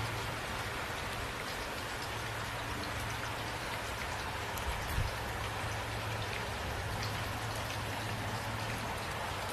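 Steady rain falling, with individual drops striking a surface, and a brief low thump about halfway through.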